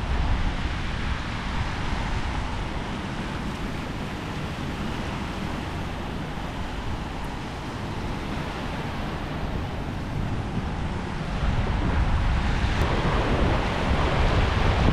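Wind buffeting the microphone over small surf waves breaking and washing up a sandy beach, the surf growing louder near the end.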